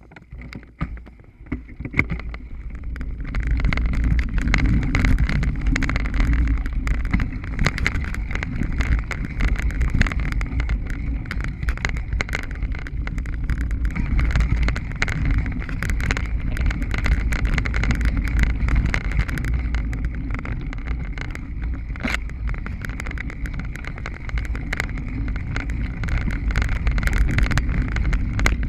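Mountain bike riding over a bumpy dirt trail: steady tyre rumble with many small rattles and knocks from the bike over bumps, and wind on the microphone. It builds up over the first few seconds as the bike gets going, then runs on steadily.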